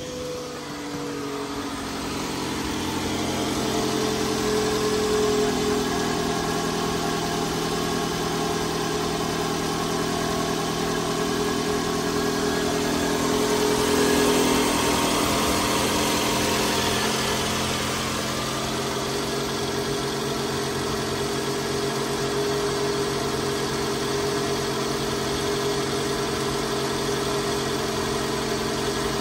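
Toyota 2AZ-FE 2.4-litre four-cylinder engine idling steadily. It grows louder over the first few seconds and is loudest around the middle, when heard close to the belt and alternator side of the engine.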